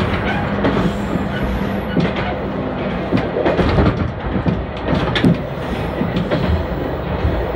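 Moka Railway diesel railcar running along single track, heard from inside behind the driver's cab: a steady engine and running rumble, with wheels clacking irregularly over rail joints.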